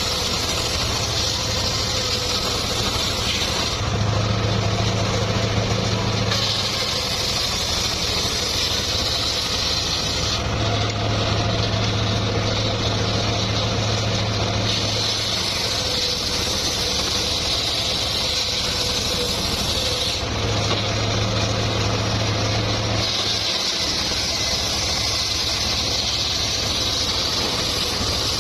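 Engine of a homemade circular-saw sawmill running steadily with a constant low hum. Every few seconds the sound shifts between a heavier hum and a brighter hiss.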